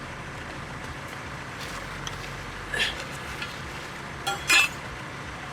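A couple of short clattering and scraping sounds of building materials being handled and set down on a concrete slab, one about three seconds in and a sharper double one near the end, over a steady low hum.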